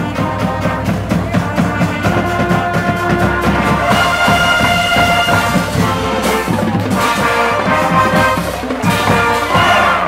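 Marching band playing loud and close, saxophones leading over a steady drum beat, with long held chords about four seconds in.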